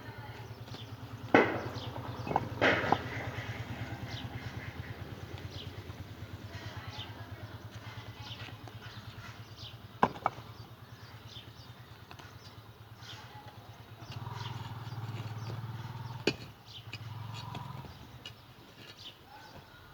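A steady low, fast-pulsing motor hum, louder for a few seconds near the end, with a handful of sharp knocks: a cluster of three in the first few seconds and single ones about halfway and near the end. Many short high chirps sound throughout.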